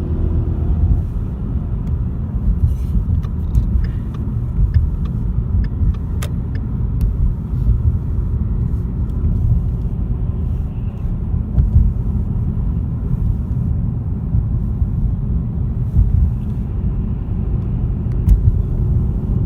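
Steady low hum of road and tyre noise inside the cabin of a 2015 Ford Mustang 2.3 EcoBoost accelerating gently. The owner hears excessive tyre-and-wheel noise that he cannot place, and suspects a bad wheel bearing or something similar.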